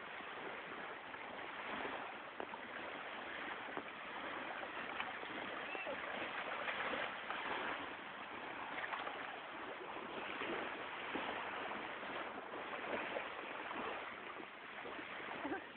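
Ocean surf washing onto a beach: a steady rushing hiss that swells and eases gently every few seconds.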